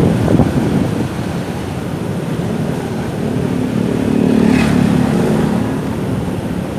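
Motorcycle engine running amid city traffic, growing louder about two and a half seconds in as it pulls harder, then easing off. A short high-pitched sound comes about four and a half seconds in.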